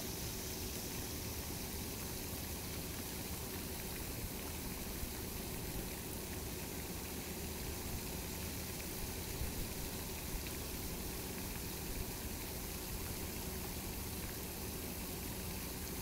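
Water of an outdoor fountain running steadily into its pond, an even splashing hiss with a faint steady hum beneath.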